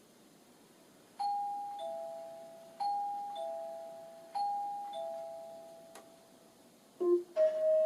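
Doorbell chime ringing a two-note ding-dong, high then low, three times about a second and a half apart, each note fading out. Near the end a click is followed by a different, lower chime tone starting.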